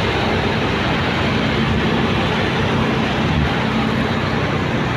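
Steady ride noise from a motorcycle moving with city traffic: a low engine hum under an even rushing noise, with no distinct events.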